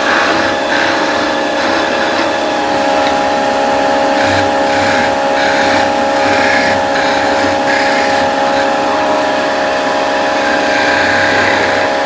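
Vicmarc VL300 wood lathe running with a steady hum while a turning tool cuts the tenons on a spinning wooden part, giving irregular scraping cuts that come and go.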